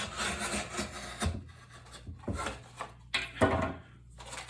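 Folding knife blade sawing through a stiff rolled-cardboard tube in a series of scraping strokes, the loudest about three seconds in.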